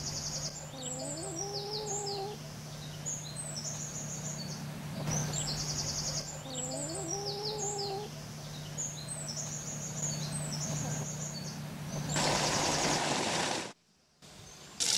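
A small songbird repeats a short, high, trilled song phrase every couple of seconds over a steady low hum, with a lower drawn-out call rising underneath twice. Near the end a louder rushing noise comes in for a second or so, then the sound briefly cuts out.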